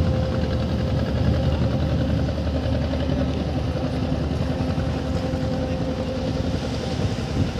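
Engine of a wooden fishing boat running steadily as the boat motors past, a continuous low drone with a steady hum.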